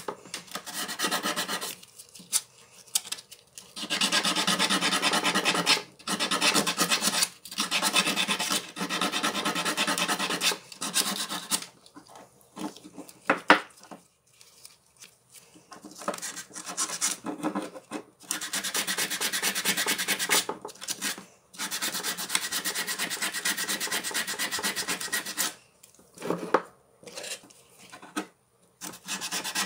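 Steel jaws of a rusted Knipex side cutter rubbed rapidly back and forth on a flat abrasive surface, a scratchy rasp that runs in long spells broken by short pauses, grinding off rust and black metal dust.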